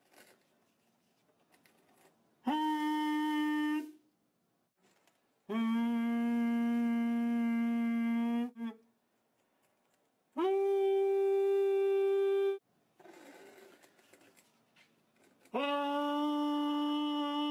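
A man humming four long held notes through a short plastic tube into a bucket under a sand-covered plastic sheet. The notes are at different pitches: a middle note, a lower longer one, the highest, then a middle one again near the end. Each steady note sets the sheet vibrating so the sand gathers into patterns.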